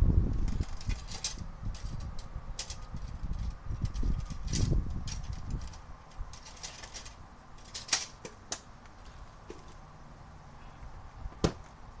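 Tools and hardware being rummaged through in a plastic tool case: irregular clicks and clatter with low handling thumps, busiest in the first half, then a few single sharp clicks.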